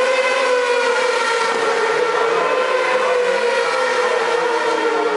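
600cc supersport racing motorcycle engine at high revs passing by, its pitch sliding gradually down as it moves away.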